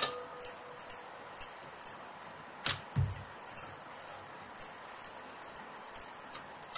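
Metal bangles clinking with each back-and-forth stroke of a wooden rolling pin as dough is rolled thin on a tiled floor. The clinks repeat about one or two times a second, and there is one duller knock about three seconds in.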